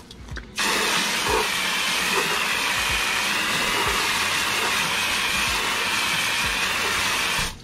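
Steady hiss of a water jet from a trigger spray wand hitting an alloy car wheel as it is rinsed. The spray starts about half a second in and cuts off just at the end.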